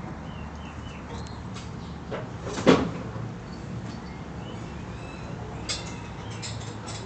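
A single loud knock about two and a half seconds in, followed later by a few fainter clicks, over a steady low hum and a few faint high chirps.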